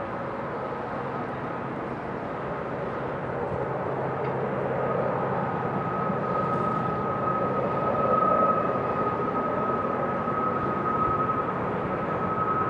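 Union Pacific manifest freight train rolling past, a steady rumble of its wheels on the rails, with a steady high-pitched tone that grows louder from about five seconds in.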